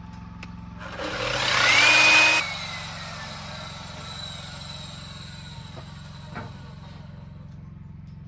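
Electric chop saw switched on, its whine rising as the motor spins up, cutting through wood for about a second and a half, then switched off, the blade winding down with a slowly falling whine: one notching pass for a rabbet joint. A steady low hum runs underneath.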